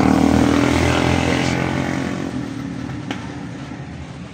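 A motor vehicle's engine running and gradually fading away, with a single click about three seconds in.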